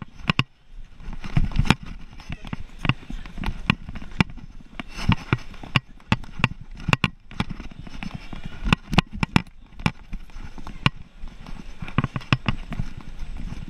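Detection dog's claws and paws clicking and knocking on a hard floor as it moves quickly among luggage, in irregular sharp clicks with a low rumble under them.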